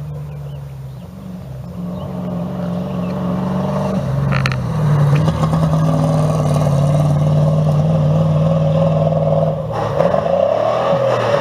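An old bonneted rally truck's engine running hard as the truck speeds along a gravel stage, growing steadily louder as it approaches. Near the end the engine pitch dips and then climbs again.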